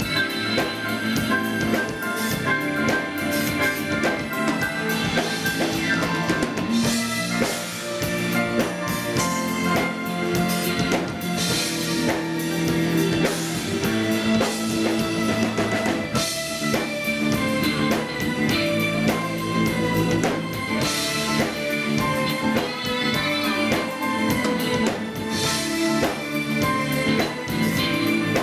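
Live jazz fusion band playing: grand piano over a drum kit and guitar, with a steady beat.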